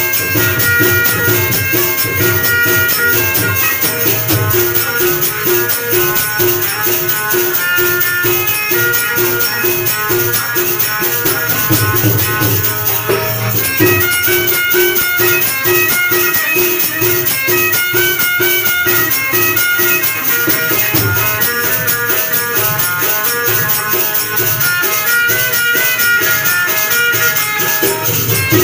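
Instrumental Panthi devotional folk music: an Indian banjo (bulbul tarang) carries the melody over harmonium and tabla, with jingling hand percussion keeping a fast, steady beat. The melody breaks off briefly about halfway through, then resumes.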